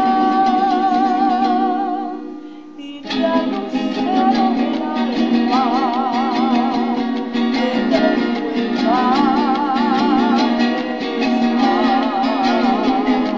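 A woman singing with wide vibrato on held notes over a strummed plucked-string accompaniment. The music dips briefly about two seconds in, then comes back in with the next phrase.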